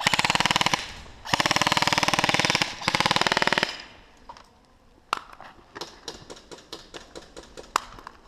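Airsoft electric guns firing full-auto: two long bursts of very rapid shots in the first few seconds, then scattered clicks with two sharper cracks.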